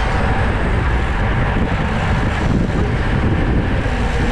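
Wind rushing over a GoPro action camera's microphone on a racing bicycle at speed: a loud, steady rumble.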